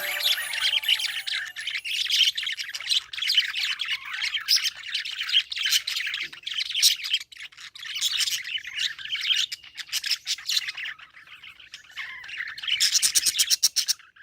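Budgerigar chattering with rapid, continuous chirps and squawks, thinning out for a couple of seconds before a dense burst near the end.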